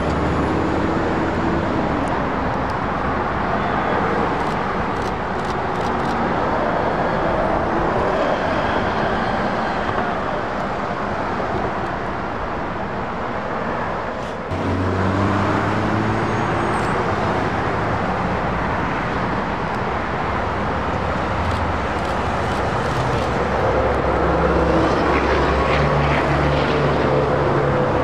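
Street traffic: motor vehicle engines running and passing, with a new, deeper engine note cutting in abruptly about halfway through.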